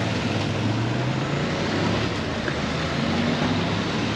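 City street traffic: cars running along the road, a steady noise of engines and tyres with a low engine hum underneath.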